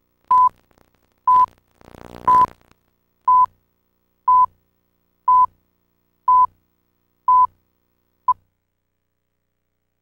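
Countdown beeps on a TV commercial's slate leader: a short steady beep once a second, nine in all, the last one cut to a brief blip.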